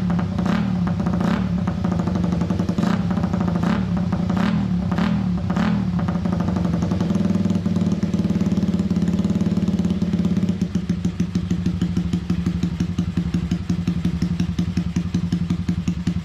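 Honda Sonic 125's single-cylinder engine running through an aftermarket muffler while being warmed up after standing unused for a long time. It is revved repeatedly in short throttle blips over the first several seconds, held a little higher for a few seconds, then drops back to a pulsing idle about ten seconds in.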